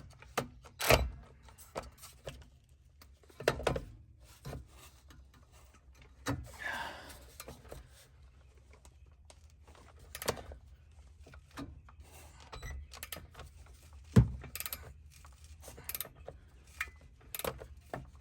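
Steel wrench and tools clanking and knocking against a rear brake caliper while a seized caliper slide pin is worked loose: scattered sharp knocks, the loudest about a second in and near fourteen seconds, with a brief scraping sound around seven seconds in.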